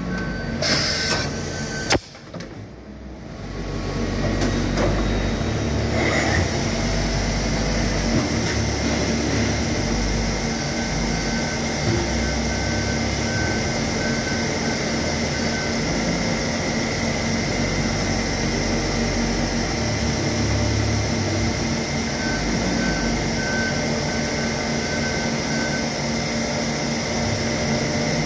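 Okuma MC-5VA vertical machining centre running. In the first two seconds there is a brief mechanical clatter as the automatic tool-change arm swaps tool holders. After a sudden drop, the machine's running sound builds over a few seconds and settles into a steady hum with a high whine.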